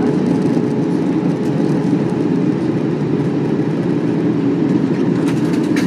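Steady cabin noise inside an Airbus A321-100 airliner on its approach: the even rush of engine and airflow noise with a steady hum held underneath.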